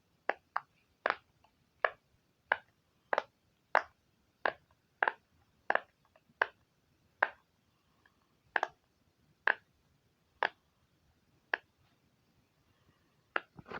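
A silicone pop-it fidget toy shaped like an ice cream, its bubbles pressed in one at a time. It gives about seventeen separate sharp pops at an uneven pace, roughly one every half second to second and a half.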